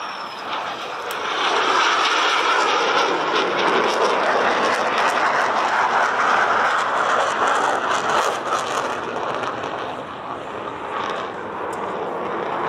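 F-16 Fighting Falcon jet passing in afterburner: a loud, steady roar with crackle that builds over the first two seconds, dips briefly near the end and then swells again.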